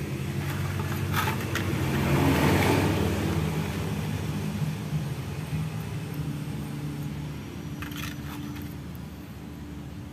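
A motor vehicle engine running in the background, swelling in the first few seconds and then slowly fading. There are a couple of short clicks, about a second in and again near the end.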